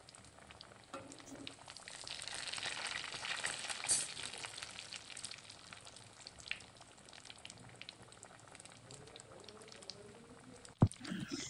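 Crumb-coated fish pieces deep-frying in hot oil in a kadai: a crackling sizzle that swells for a couple of seconds and then settles lower. One sharp click near the end.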